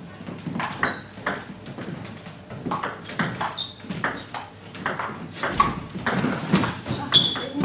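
Table tennis doubles rally: the celluloid ball ticking sharply off bats and table, a click roughly every half second at an uneven rhythm.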